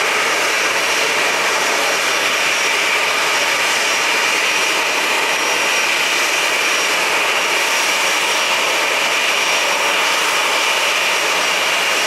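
Boeing 737's twin CFM56 jet engines running at taxi idle as the airliner rolls slowly in: a steady rushing whine with a faint thin high tone over it, unchanging in level.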